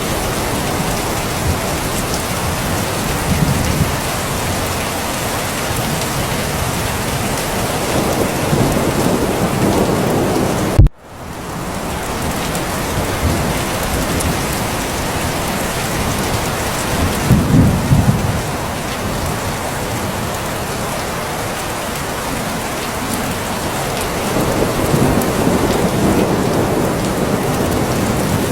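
Steady rain falling, with low rolls of distant thunder swelling now and then. About eleven seconds in, a sharp click and a momentary drop-out break the sound before the rain comes back.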